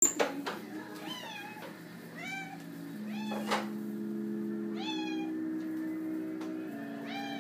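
Domestic cat meowing about five times, each meow rising then falling in pitch, over sustained low notes of background music that shift every couple of seconds.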